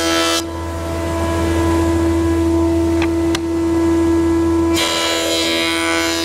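Surface planer (buzzer) running with a steady hum. Its cutter block takes a board briefly right at the start, then again from about three-quarters of the way through, each pass a loud rough planing noise.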